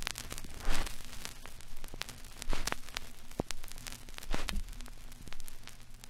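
Crackling static with many scattered clicks and a low steady hum, surging up and down in loudness: the tape-noise sound of an old VHS-style playback.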